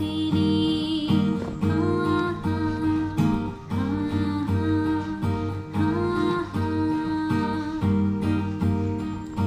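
Background music led by acoustic guitar, its melodic phrase repeating about every two seconds.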